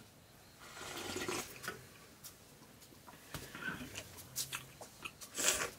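Slurping liquid from a steel bowl in several short noisy sips, the loudest near the end, with small clicks between.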